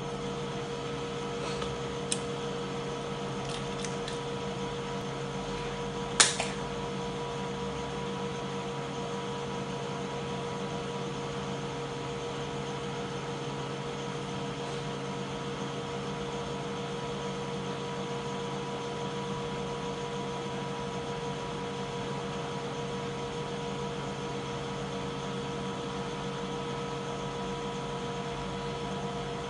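Steady hum made of several steady tones, with a few faint clicks early and one sharp click about six seconds in.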